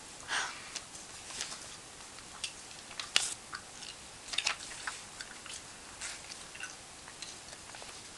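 Magazine paper clippings being handled and shuffled: irregular light crackles and rustles, the sharpest a bit over three seconds in.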